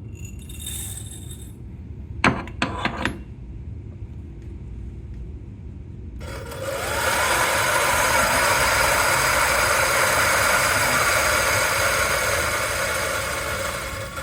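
A brief clatter of coffee beans about two seconds in. Then, about six seconds in, the Turin DF83V burr grinder spins up with a short rising whine and grinds a 21 g dose of dark-roast espresso beans with a steady grinding noise, tapering off near the end as the dose runs through.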